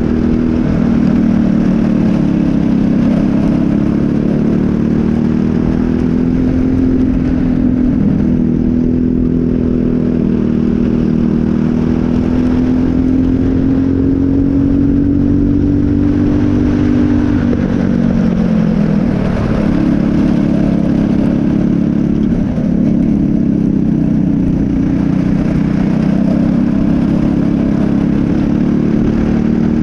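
Briggs & Stratton LO206 single-cylinder four-stroke kart engine heard close up at racing speed. Its note climbs steadily along the straights and drops as the kart slows for corners, once about eight seconds in and again, more deeply, around eighteen to nineteen seconds in, before climbing again.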